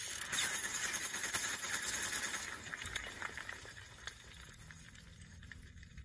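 Crackling, hissing sound effect of an animated title intro, a dense spray of fine clicks that fades away over the last few seconds.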